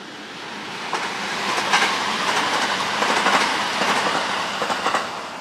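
JR West 521 series electric train passing at speed. It grows louder over the first second or so, with its wheels clicking over the rail joints. The sound cuts off suddenly near the end.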